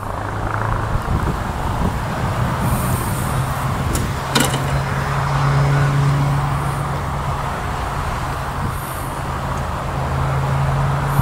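A motor running steadily with a low, even hum, and a sharp click about four and a half seconds in.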